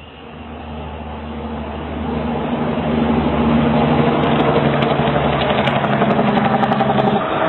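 A low, steady engine-like hum with several held tones, swelling over the first three seconds and then holding loud, with faint clicks over it.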